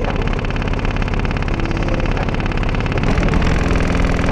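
Three 15-inch subwoofers in a ported box playing a loud bass demo, heard as a steady, fast buzzing pulse over deep steady bass.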